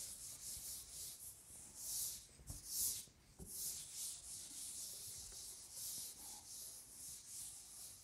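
A board duster wiping chalk off a chalkboard: a quick series of faint, hissing rubbing strokes, with two louder strokes about two and three seconds in.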